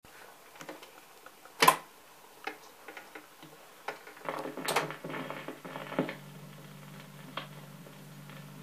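A 1970 Dansette record player's autochanger cycling: scattered clicks and clunks as the single drops onto the turntable and the tonearm swings over and sets down, with a louder clack about a second and a half in and another near five seconds. From about four seconds a steady low hum comes through the speaker.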